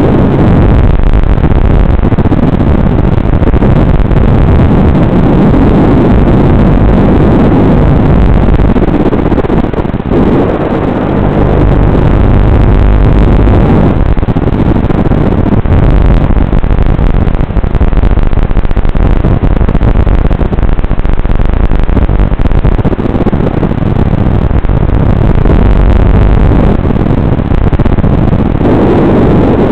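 Racing quadcopter's motors and propellers in flight, heard through the drone's own onboard video-transmitter microphone as a loud, muffled rush of noise that dips briefly now and then with the throttle.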